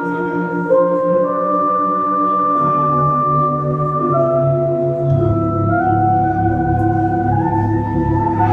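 Live band music led by sustained organ chords that change every second or two, with a low bass line coming in about five seconds in.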